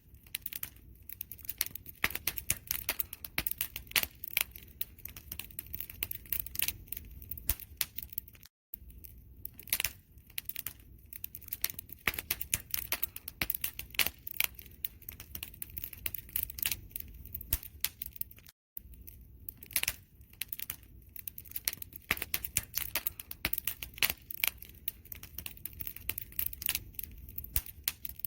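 Campfire burning and crackling: a dense, irregular run of sharp pops and snaps over a low, steady rumble of flame. The sound cuts out for an instant twice.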